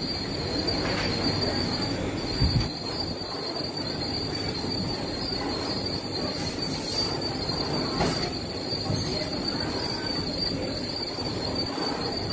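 HASAKA fabric inspection machine running as the fabric feeds past the lit inspection panel: a steady mechanical rumble with a constant high whine. A low knock comes a little after two seconds in, and a sharp click about eight seconds in.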